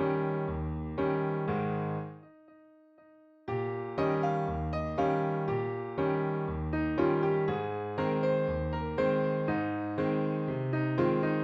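Background music: piano-like keyboard chords struck about twice a second, pausing briefly about two seconds in with a few notes left ringing, then resuming at the same steady pace.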